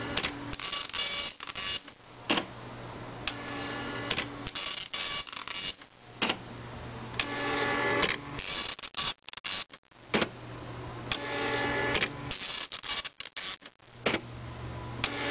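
Panasonic KX-P1090 dot matrix printer printing a graphic image. Each pass of the print head starts with a sharp click, then a steady buzz that grows louder and breaks into quick stop-start stutters. The passes repeat about every four seconds, a slow print as the printer copes with the image data feeding into it.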